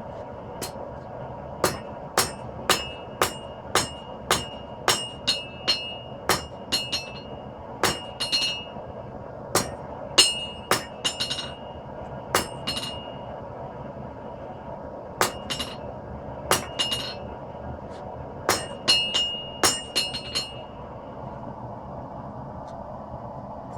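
Hammer striking hot 5160 spring steel on an anvil, drawing out a knife blade: groups of sharp blows, about two a second, each with a short metallic ring, with brief pauses between groups. The hammering stops a few seconds before the end, leaving a steady background hum.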